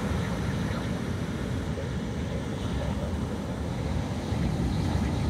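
Steady low rumble of road and engine noise inside a moving camper van.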